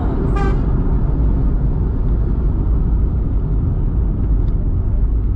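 Car driving along a paved road, heard from the car itself: a steady low rumble of engine and road noise. A brief pitched sound comes about half a second in.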